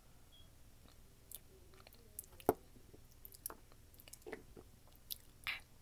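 Close-up mouth sounds: soft, wet lip smacks and scattered clicks as a white lip balm is worked against the lips. One sharp click about two and a half seconds in.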